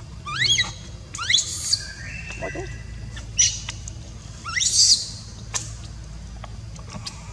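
Baby macaque crying in distress: four short, shrill squeals that each rise sharply in pitch, the loudest about five seconds in.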